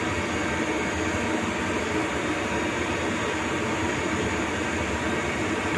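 Steady whir and low hum of cooling fans in a cabinet of Siemens SINAMICS G120 variable-frequency drives.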